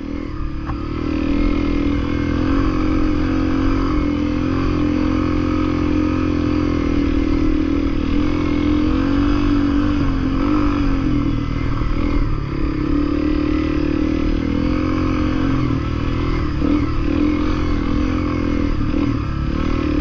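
Honda CRF250L's single-cylinder four-stroke engine running steadily under way, its pitch rising and falling with the throttle.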